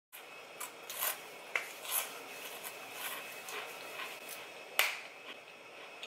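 Handling noise close to the microphone: rubbing and rustling with scattered light clicks, and one sharper click a little before the end, as hands adjust the camera.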